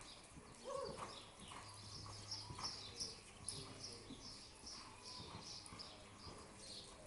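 Two-year-old American Paint Horse filly loping under saddle on soft arena dirt: faint, muffled hoofbeats, with a run of high chirps repeating about three times a second over them.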